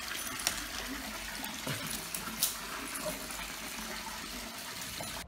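Water running steadily, with two brief clicks about half a second and two and a half seconds in.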